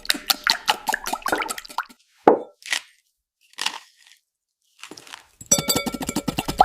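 Close-up cooking sounds from making a Korean rolled omelette: quick crisp taps and clicks, then a few separate soft plops, then another rapid run of clicks near the end.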